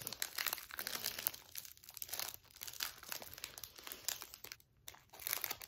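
Crinkling snack wrapper as someone struggles to tear it open, a dense run of crackles with a short break near the end.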